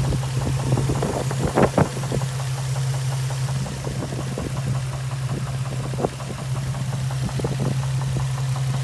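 2007 Infiniti G35 coupe's 3.5-litre V6 idling steadily with a light ticking but no clear knock. The owner suspects a rod knock after the engine ran low on oil.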